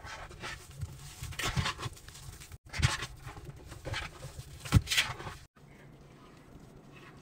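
A hand squelching and pressing into thick wet detergent paste over laundry in a washing-machine drum, with a few sharp wet squishes about every second or two, then quieter rubbing near the end.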